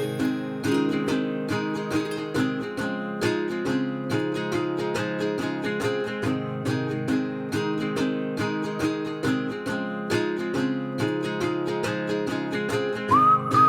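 Background music: acoustic guitar strumming a steady, upbeat rhythm, with a whistled melody coming in near the end.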